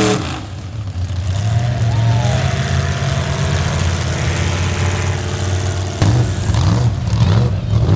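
Engine of a lifted Chevrolet square-body mud truck running at low revs as it crawls on big tires, with a brief rise and fall in pitch about two seconds in. It grows louder about six seconds in.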